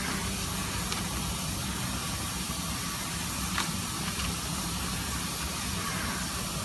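A steady hiss with a low hum runs under everything. A few faint crinkles and clicks come from dried leaves and string being handled as a rice dumpling is tied, about a second in and again about three and a half seconds in.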